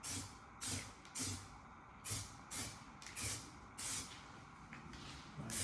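Primer being sprayed onto a steel wheel in short, quick bursts of hiss, about one every half second, pausing for a second or so before two more bursts near the end.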